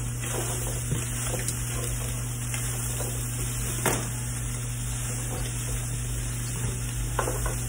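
Chicken browning in a frying pan: a steady sizzle, with a few sharp knocks of a utensil against the pan as it is stirred.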